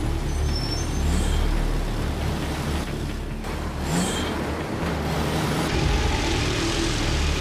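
Sound effect of a heavy truck engine: a steady low rumble of a big rig driving along the road.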